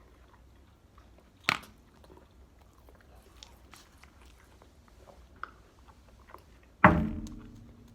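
Close-up eating sounds: chewing and small crunches, with a sharp click about a second and a half in. Near the end comes a louder knock that rings briefly as it dies away.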